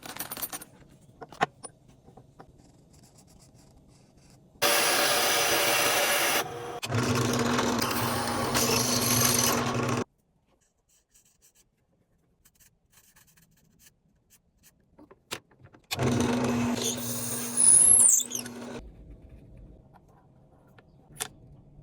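A woodworking power tool working a piece of snakewood, in two runs: one of about five seconds and a shorter one near the end. Each run carries a steady motor hum, and the second ends with a short high squeal. Light taps and knocks sound between the runs.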